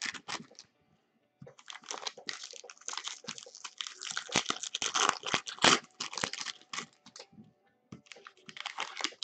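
Foil wrappers of Bowman baseball card packs crinkling and tearing as they are pulled open by hand, with a brief pause about a second in and another near the end.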